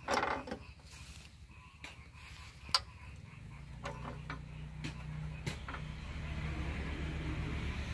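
Scattered sharp metal clinks and taps as a new exhaust pipe is fitted by hand to a walking tractor's engine. From about three seconds in, a low engine hum with an even pulse comes in and grows steadily louder.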